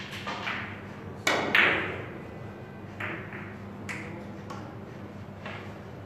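Three-cushion billiards shot: the cue tip strikes the cue ball, followed by a series of sharp clicks as the carom balls hit each other and the cushions. The loudest pair of clicks comes about a second and a half in, with fainter knocks spaced out after it.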